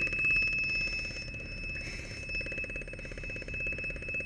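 An alarm sounding without a break: a steady high-pitched tone over a fast, even rattling pulse.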